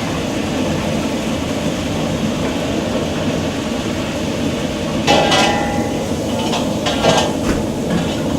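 Metal cookware clanking: a sharp ringing clang about five seconds in and a few lighter clanks after it, over a steady loud rumbling noise.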